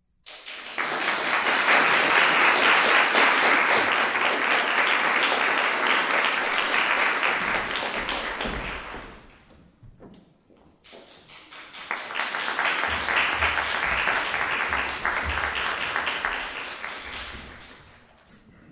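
Audience applauding. It dies away about nine seconds in, and a second round starts a couple of seconds later and fades near the end, with a few low thuds under it.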